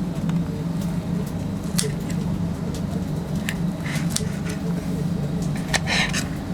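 A steady low mechanical hum, with scattered light clicks and clatter and a short noisy burst about six seconds in.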